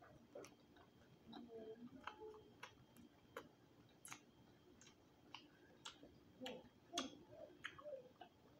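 Faint, irregular crunches and wet mouth clicks of close-miked chewing on crispy roasted quail, a sharp click every half second or so.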